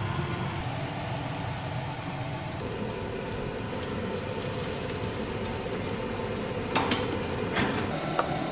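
Steady sizzling of food cooking on the stove, with a few sharp knife chops on a plastic cutting board near the end.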